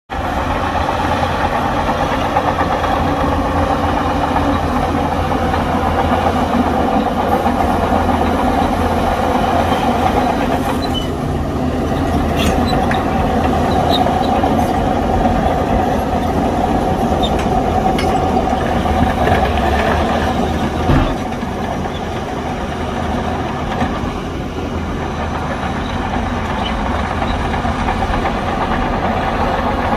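Heavy diesel earthmoving machinery running steadily under load, with a few sharp metallic clanks and a brief knock about two-thirds of the way through.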